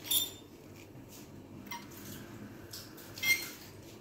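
Metal pizza-cutter wheel cutting through chin chin dough and clicking against a stone countertop. There are two sharp scrapes, the first just after the start and the second about three seconds later, with a few faint ticks between them.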